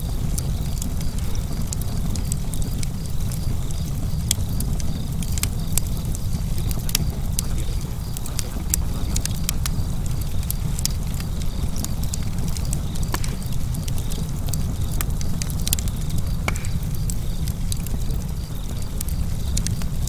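Fire crackling: many sharp, irregular pops and snaps over a steady low rush of burning.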